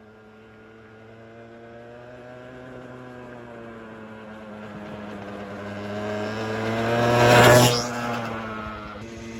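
A motor vehicle's engine running and drawing steadily closer, passing loudest about seven and a half seconds in with a rush of noise, then falling away slightly lower in pitch.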